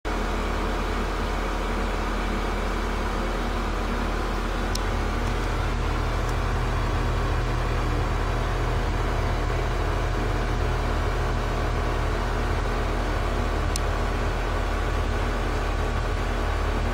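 A steady low mechanical hum with a haze of noise, like a fan or motor running, unchanged throughout.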